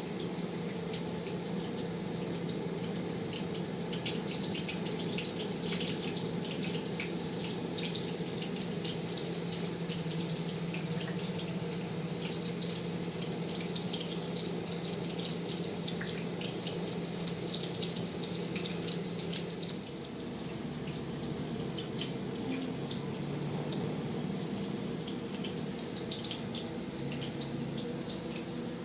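Crickets chirring steadily over a water-like hiss with many faint crackles. A low steady hum stops about twenty seconds in.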